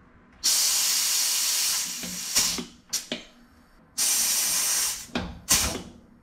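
Hand-held pneumatic tool on a compressed-air hose, used to fit a nut plate to an aluminium firewall. It gives two long bursts of air hiss, each followed by a few sharp clicks.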